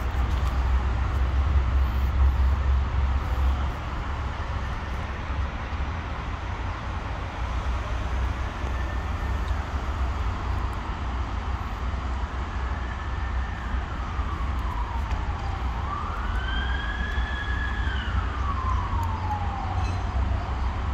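A siren wailing, its pitch sweeping slowly up and down: faint at first from about eight seconds in, clearest in a long rise and fall near the end. Under it runs a steady low rumble.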